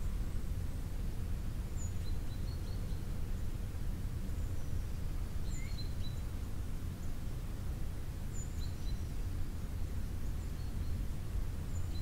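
Short, faint, high-pitched chirps of small songbirds, a few calls every couple of seconds, over a steady low rumble.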